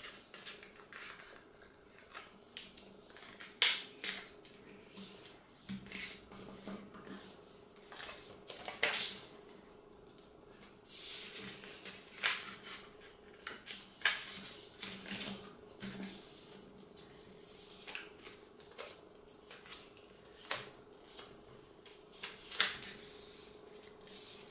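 A sheet of paper being folded and its creases pressed down on a wooden tabletop: short, irregular crisp rustles and taps, some louder than others.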